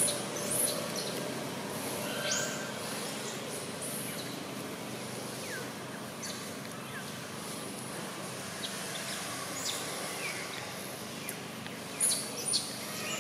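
Scattered short, high bird chirps over steady outdoor background noise, with a few brief louder chirps near the start and near the end.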